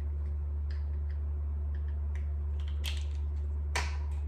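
Steady low electrical hum, with a few light clicks and taps from small parts and tools being handled on a workbench; the sharpest click comes near the end.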